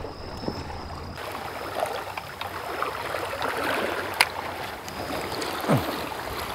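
Small waves washing against shoreline rocks, with wind on the microphone. A sharp click about four seconds in.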